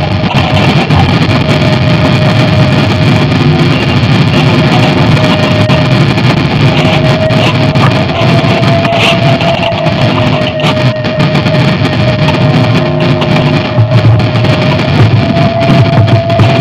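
Dense electronic noise drone from sound generators: a thick, unbroken rumbling wash with one steady held tone in the middle that shifts pitch slightly a few times.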